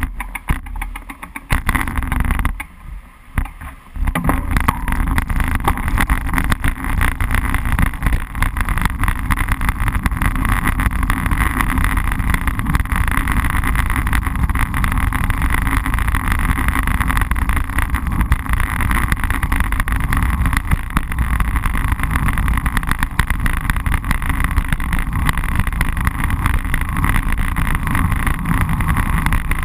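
Wind rumble and road vibration picked up by an action camera mounted on a moving road bicycle: a steady rumble with fast rattling. It is quieter and uneven for about the first four seconds, then steady and loud once the bike is under way.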